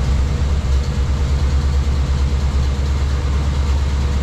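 350 V8 bored .060 over (about 360 cubic inches) idling steadily just after its first start on a freshly fitted Holley Sniper EFI, still cold and not yet learned.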